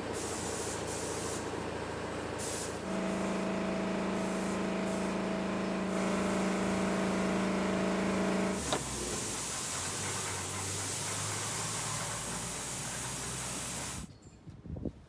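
A steady hiss like compressed air or spraying, with a machine's steady pitched hum joining it from about three to nine seconds in. It drops away sharply near the end.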